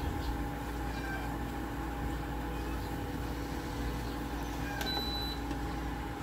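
Induction cooktop running under a steel pot, a steady electrical hum with a few constant tones and a low rumble, with faint clicks of a utensil against the pot.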